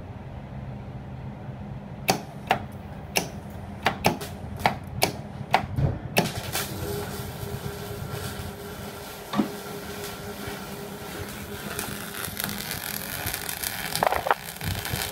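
Modified MIG welder, its contactor replaced by triacs, humming while it is switched on and off repeatedly, giving about nine sharp clicks in the first six seconds. About six seconds in the welding arc strikes and runs steadily, crackling and hissing, with a faint steady whine under it.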